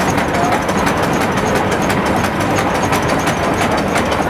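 Atlas horizontal stationary steam engine running steadily, with a continuous clatter of small clicks and knocks from its moving parts and the belts it drives.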